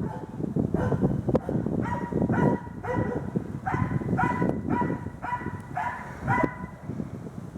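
Hunting dog baying at a wild boar: a run of repeated barks, about one every half-second to second, starting about two seconds in, over a steady low rough noise.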